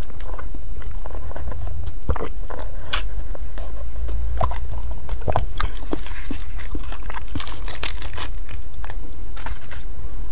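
Close-miked eating sounds: irregular wet mouth clicks and chewing, with sipping through a straw and soft crackling as a spongy cake is handled and pulled apart, over a steady low hum.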